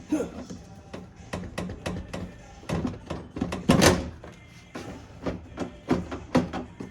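Irregular plastic and metal clicks, knocks and rattles as the inner door carrier panel of a 2013 Hyundai Sonata Hybrid's front door, holding the window regulator and latch, is wiggled out of the door shell. The loudest, longest rattle comes a little under four seconds in.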